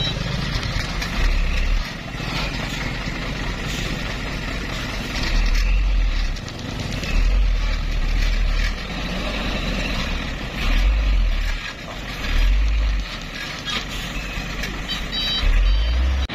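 Dump truck's diesel engine pulling in the mud, rising in repeated low surges of power, with its reversing alarm beeping near the end.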